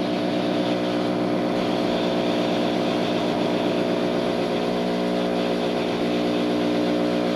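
Electric heat gun running steadily, its fan motor humming under the rush of hot air, heating a solder seal wire connector to melt its solder ring and shrink its sleeve.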